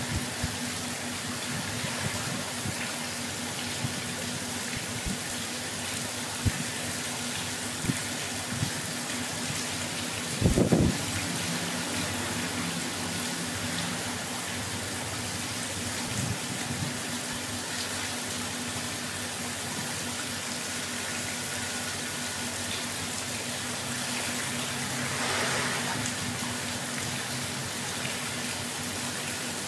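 Water from a wall fountain running down a metal disc sculpture and splashing below, a steady hiss. A brief low thump about ten seconds in.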